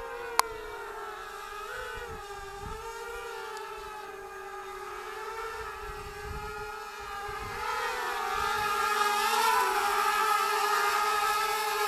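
Inverted mini hexacopter's six brushless motors and propellers whining in flight, a buzzing tone that wavers up and down with the throttle and gets louder about eight seconds in. A sharp click about half a second in.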